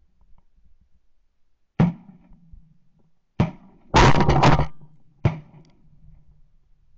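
Several sharp knocks, each with a short ringing tail, about a second and a half apart, and a loud rattling clatter lasting about half a second in the middle, over a faint steady low hum.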